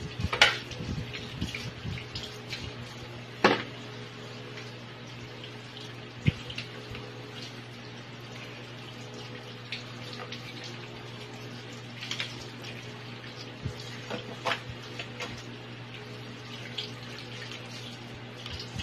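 Water running and splashing in a sink while live crabs are cleaned, with a steady hum underneath. Scattered sharp clicks and knocks of crab shells and the knife against the sink, the loudest about half a second in and again at about three and six seconds.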